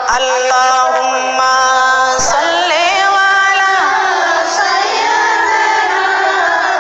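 A woman singing a devotional chant in the sung style of a Bangla waz, with long held notes that glide between pitches. There is a short click a little after two seconds in.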